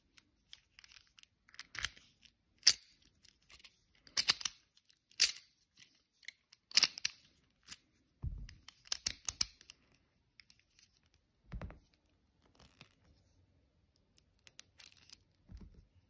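A Master Lock M5 padlock and its key handled: irregular sharp metallic clicks and rattles, with a few dull thumps in between.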